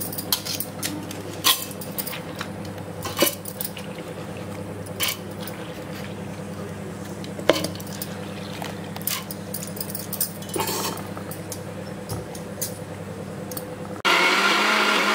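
Steel bowls, spoon and mixer jar clinking and scraping as soaked urad dal is scooped into a stainless-steel mixer-grinder jar, over a steady low hum. About a second before the end the mixer grinder switches on suddenly and runs, starting to grind the dal into vada batter.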